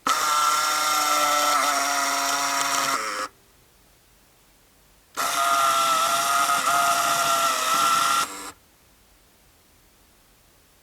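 Porst Reflex ZR 422 Super 8 cine camera's motor running as when filming, a steady whine, twice: a run of about three seconds, a pause of about two seconds, then another run of about three seconds, each stopping abruptly.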